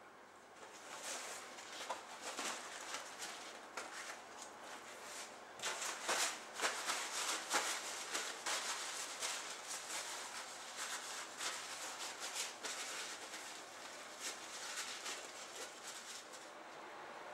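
Paper towels crinkling and rustling as hands pat and rub a raw whole chicken dry, in irregular scrunching strokes that are loudest around the middle.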